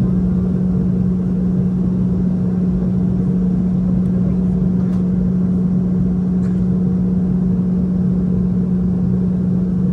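Steady cabin drone of a Boeing 717 in flight: its rear-mounted Rolls-Royce BR715 turbofans and airflow make an even rumble and hiss with a strong steady hum, heard from inside the cabin.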